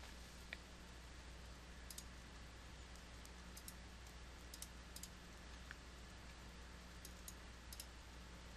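Near silence over a low steady hum, with a scattering of faint, sharp computer mouse clicks.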